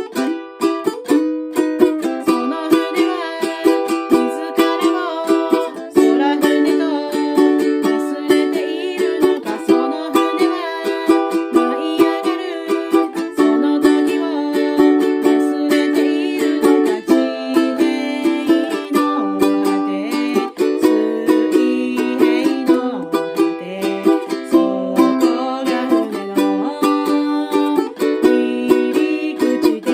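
Ukulele strummed in a steady rhythm, playing chords of a song.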